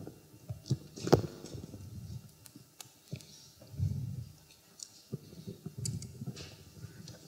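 Microphone handling noise: irregular clicks, knocks and soft low thuds and rubbing as a small clip-on or headset microphone is taken off and fitted onto a jacket. The sharpest knock comes about a second in.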